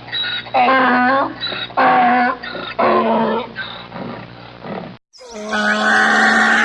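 Donkey braying: a run of short, harsh pitched calls, then a brief silence about five seconds in, followed by a longer, louder bray.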